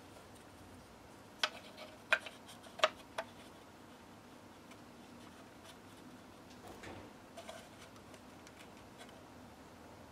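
Small wooden model-boat parts being handled and set onto a wooden hull: four sharp wooden taps in quick succession about a second and a half in, then softer rubbing and a couple of light clicks about two-thirds of the way through.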